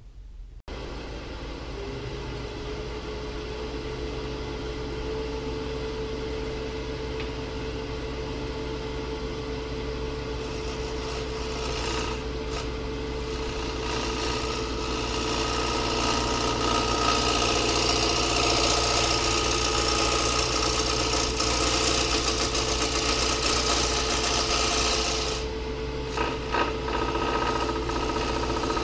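A Powermatic wood lathe starts about a second in and runs with a steady motor hum and a held whine. From about ten seconds in, a bowl gouge cutting the spinning square walnut blank adds a continuous hissing scrape: a long shaping pass along the underside toward a foot. The cut stops briefly near the end, then resumes.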